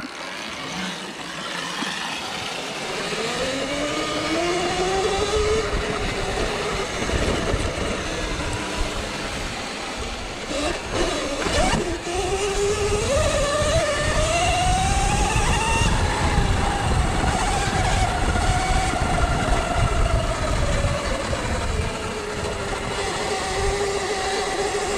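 Electric dirt bike's motor whine climbing in pitch as the bike pulls away from a stop, then rising and falling with speed. A steady rush of noise runs underneath, with a couple of knocks about eleven seconds in.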